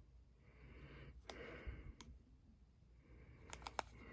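Near silence with a few faint clicks from trading cards being handled: one, another shortly after, then a quick run of three near the end.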